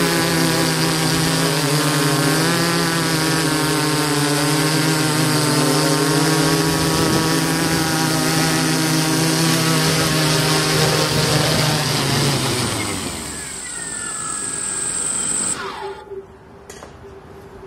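DJI S800 hexacopter's six electric motors and propellers running with a steady hum and high whine. About twelve seconds in, the rotors wind down as the craft settles on the ground, their pitch falling away, and the sound cuts off near the end.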